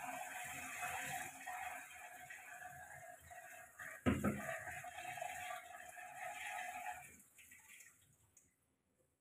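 Kitchen tap running into a sink while things are washed by hand under it, with a sharp knock about four seconds in. The water stops about seven seconds in and the sound fades away.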